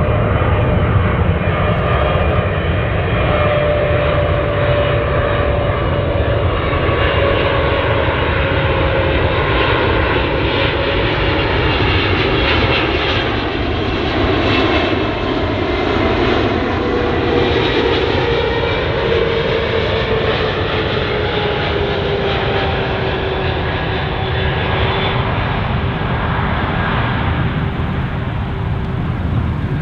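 Boeing 777-300ER on final approach, its two GE90-115B turbofan engines running steadily at approach power. A whine in the engine noise slowly falls in pitch as the airliner passes and moves away.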